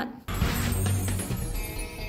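A news channel's outro music jingle. It starts suddenly about a quarter second in with a deep hit, then rings on in sustained tones that slowly fade.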